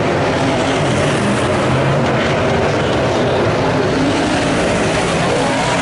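Several late model sedan race cars' engines running around a dirt speedway oval, a loud steady drone with overlapping engine notes rising and falling as the cars lap.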